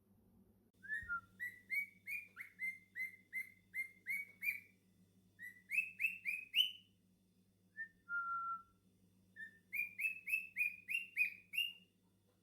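Cockatiel whistling: runs of short, rising whistled notes, about three a second, in three bursts, with one longer, lower held note a little past the middle.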